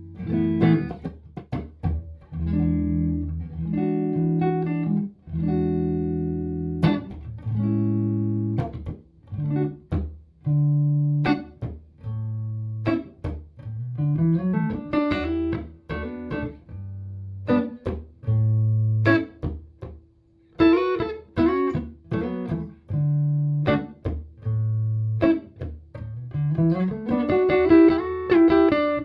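Squier Bullet Stratocaster electric guitar played clean through a Fender Hot Rod Deluxe IV amp, with no effects: ringing chords alternating with single notes and quick rising runs.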